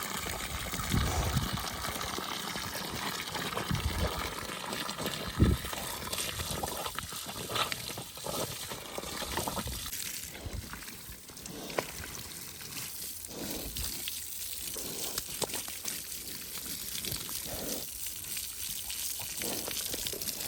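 Water pouring and trickling steadily, with a few low thumps in the first few seconds.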